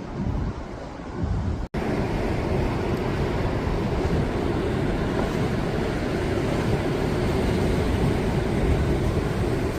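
Sea waves breaking on the shore under a steady rumble of strong wind on the microphone. The sound drops out for an instant a little under two seconds in, then carries on at the same level.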